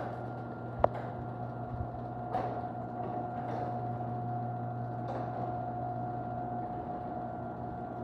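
Chamberlain 1/2 HP Security+ garage door opener closing the sectional door: a steady motor hum with a thin steady tone over it, a sharp click about a second in and a few light knocks along the way. With foam padding in the opener and a freshly greased rail and trolley, it runs virtually quiet.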